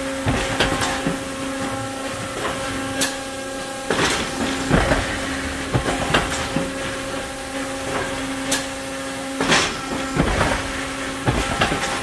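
Factory machinery running with a steady hum, broken by irregular sharp clanks and knocks, roughly one a second.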